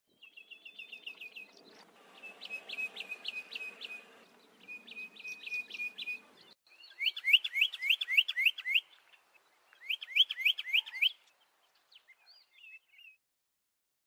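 Grey tit calling: several runs of quick, sharp repeated notes, each run lasting a second or two, with a few softer notes near the end.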